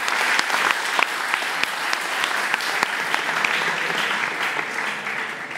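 Audience applauding: a steady, dense clapping that begins fading near the end.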